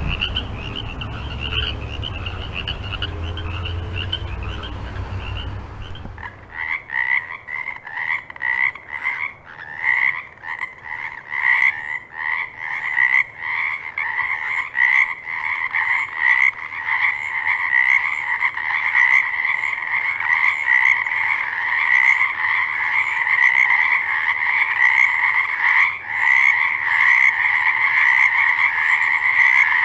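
A chorus of frogs calling. For the first six seconds it is a high trill over a low rumble; then it changes abruptly to louder, fast-pulsing croaks that build into a dense, continuous chorus.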